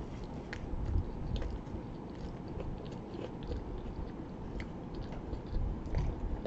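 A person chewing a mouthful of pizza, with scattered small wet clicks of the mouth.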